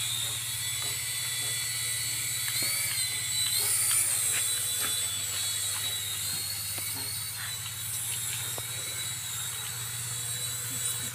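Toy remote-control mini helicopter's small electric motors whining as its rotors spin and it flies, the pitch dipping and rising a few times as the throttle changes.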